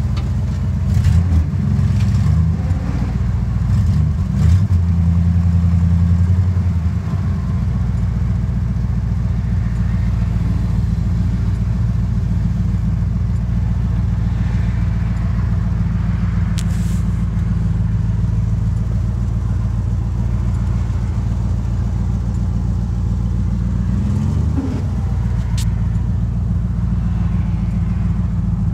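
1965 Ford Galaxie 500's 351 Windsor small-block V8 running, heard from inside the cabin. Its note rises and falls over the first several seconds, then runs steady, with a brief blip about 24 seconds in.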